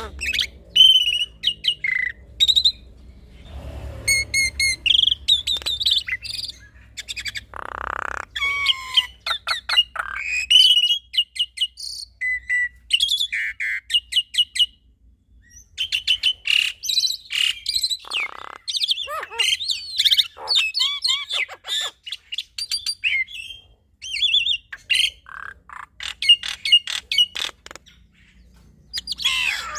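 A black-winged starling and a Javan myna singing in a duet, a busy run of whistled, gliding notes and quick clicking rattles. Two harsh, rasping calls come about 8 and 18 seconds in.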